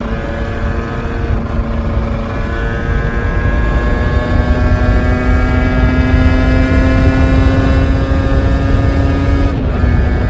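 Yamaha RZ350's two-stroke parallel-twin engine running loud, its pitch climbing slowly for several seconds, then dropping suddenly near the end.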